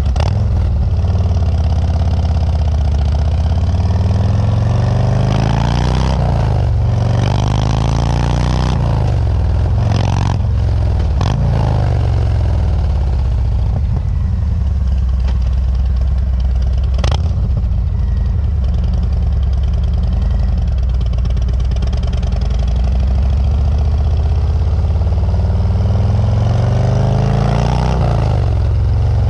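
Harley-Davidson Milwaukee-Eight V-twin breathing through Rinehart DBX45 slip-on mufflers while being ridden: a loud, deep, steady rumble. The engine speed rises and drops several times in the first half and again near the end as the throttle is worked through gear changes.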